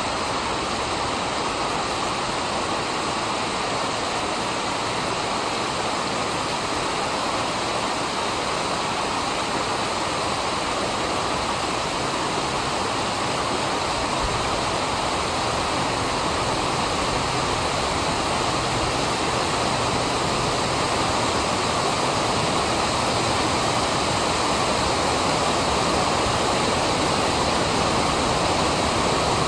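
Creek water rushing over a low rock ledge, a steady rush that grows slightly louder as the flow swells with a flash flood.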